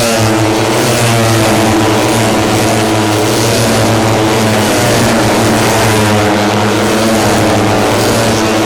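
Four-stroke 150cc underbone race motorcycles running at high revs on the circuit, a loud steady engine drone whose pitch rises and falls as the bikes shift and pass.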